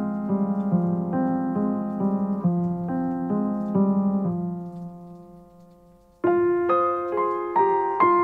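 Soft solo piano music: a gentle phrase of repeated notes that fades away about five seconds in, then a new phrase begins about six seconds in.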